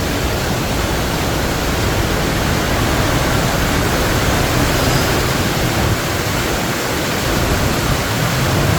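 Heavy monsoon rain falling steadily: a loud, even hiss of a downpour.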